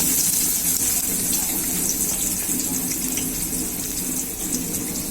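Sliced onions frying in hot oil in a pan: a steady sizzle.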